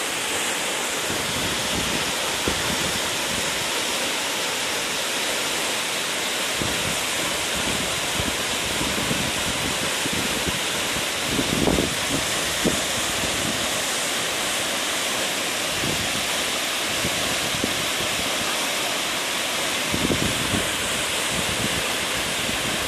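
Waterfall crashing down: a steady, unbroken rush of falling water, with a few brief low thumps, most around the middle and near the end.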